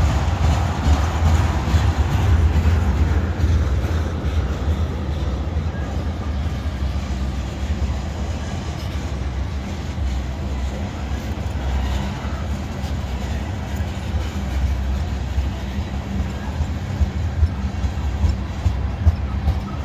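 Freight train tank cars rolling past close by: a steady low rumble of steel wheels on the rails.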